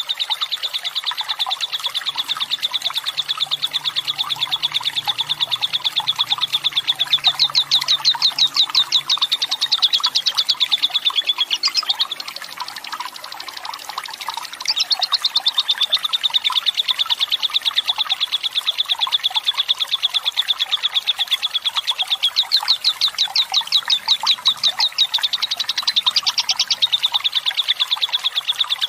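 Fighter lovebird singing its long 'ngekek': a rapid, high-pitched chattering trill held for many seconds at a time. About twelve seconds in it breaks off into a short, quieter stretch, then the trill starts again.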